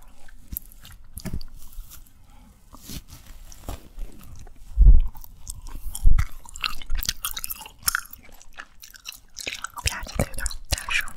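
Close-miked chewing of a soft, marshmallow-like bubble gum: irregular wet smacks and clicks, with two heavier low thumps about five and six seconds in.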